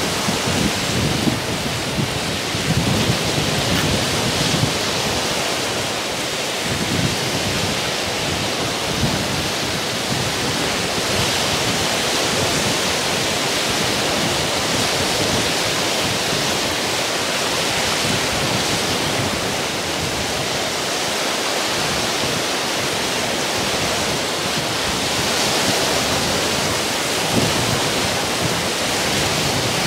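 Wind-driven lake waves breaking on a rocky shore, a steady wash of surf, with gusty wind buffeting the microphone as an uneven low rumble.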